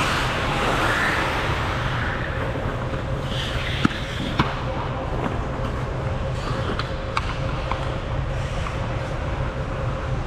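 Ice hockey play: skate blades scraping on the ice over a steady low hum, with sharp clacks of sticks and puck. The two loudest clacks come about four seconds in, half a second apart, and fainter ones follow a few seconds later.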